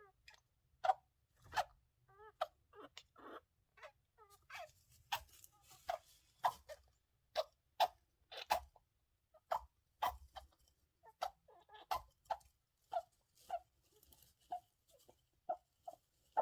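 Pet hamster with a cold making short, sharp sneezing and squeaking noises, one or two a second, the sign of its respiratory infection.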